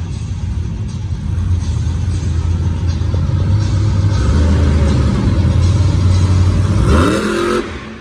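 Monster truck's supercharged V8 engine running hard with a steady, deep drone, then letting off near the end with a few quick rising revs.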